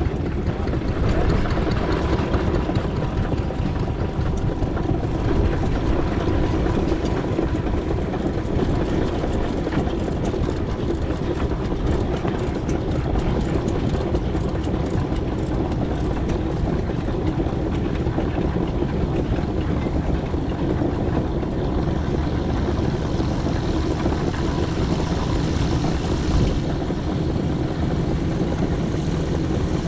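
4-inch scale McLaren traction engine on the move, a steady running noise of the engine and its wheels heard from aboard.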